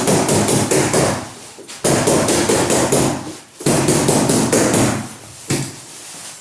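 Stapler being fired rapidly to fasten carpet pad to the floor: quick, even strikes about five or six a second, in three runs of a second or so each with short pauses between, then it goes quieter near the end.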